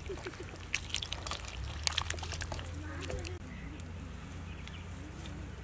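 Water splashing and sloshing in a steel bowl as a handful of small fish are rubbed and washed by hand, with sharp little clicks and drips. After about two and a half seconds this gives way to a quieter stretch with a low steady hum and faint wavering calls.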